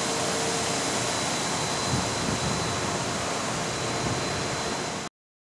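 Rooftop air-conditioning condenser fans running, a steady rushing of air with a faint high whine; the sound cuts off abruptly near the end.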